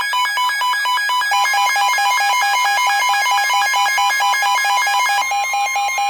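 Weather alert radio's electronic alarm: rapidly alternating shrill beeping tones, shifting pattern partway through, with a steady tone joining near the end.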